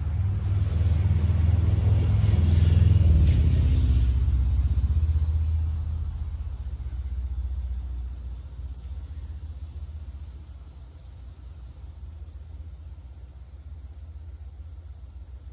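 A deep rumble that swells to its loudest about three seconds in, then fades away over the next several seconds.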